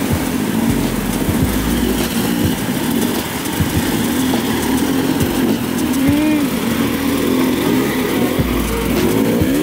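Several dirt bike engines revving up and down as the bikes ride through a rocky stream, with water splashing.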